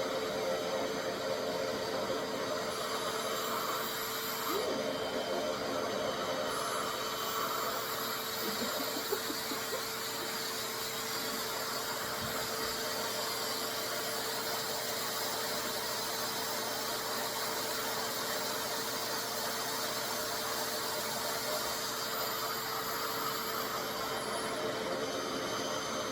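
RevAir reverse-air hair dryer running steadily on its lowest suction setting, drawing hair into the wand with unheated air: an even rush of air over a constant hum.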